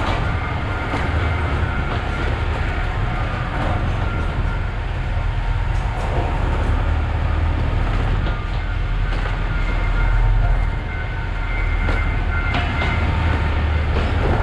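Alishan Forest Railway diesel locomotive DL51 hauling wooden carriages at slow speed: a steady low engine rumble mixed with wheel noise on the rails.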